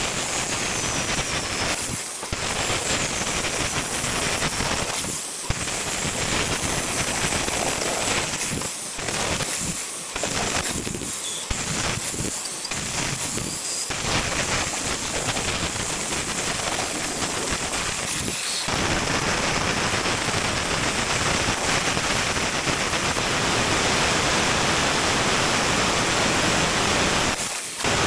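CNC plasma table's torch cutting steel diamond plate: a steady loud hiss of the plasma arc. It stops briefly several times in the first half as the torch shuts off and restarts between cuts, then runs unbroken for the last third.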